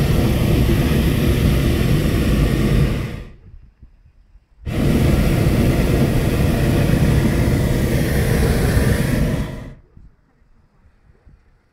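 Hot-air balloon's propane burner firing in loud, steady blasts: one cuts off about three seconds in, and after a pause of about a second and a half a second blast runs for about five seconds before stopping abruptly.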